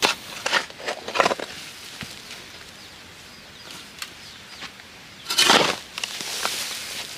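Hand hoe chopping into and scraping through stony, gravelly soil. Two short strikes come in the first second and a half, and a longer, louder rasping scrape about five and a half seconds in.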